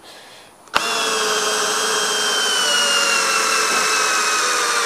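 Milwaukee M12 2401-20 cordless 1/4-inch screwdriver, set in drill mode with no clutch, driving a 6-inch LumberLok screw into wood. It starts abruptly about a second in, and the motor whine falls slowly in pitch.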